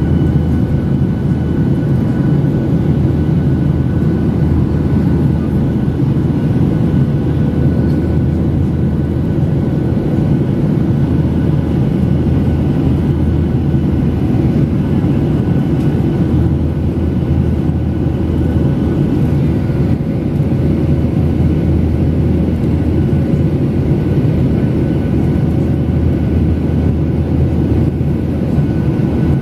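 Steady cabin noise of a Boeing 737 airliner climbing out after take-off: a low rumble of the engines and airflow, with a few faint steady whining tones over it.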